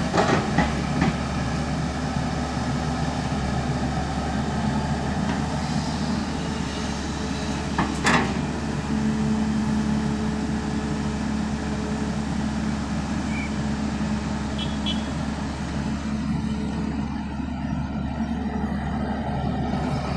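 JCB 3DX backhoe loader's diesel engine running steadily under work, with a few sharp knocks near the start and a louder one about eight seconds in.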